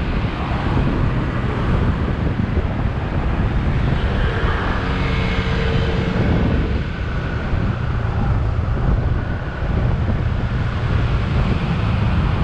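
Wind buffeting the microphone over the steady running of a motorcycle and the traffic around it, with a few faint tones about halfway through.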